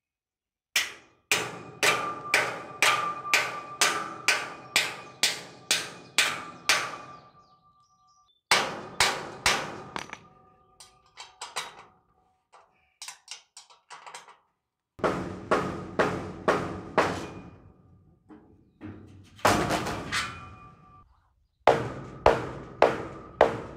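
Hammer striking steel: hammering an anchor bolt through a metal carport's base rail into the concrete pad and knocking the steel frame into line. The strikes come in several runs, about two a second, each blow ringing briefly.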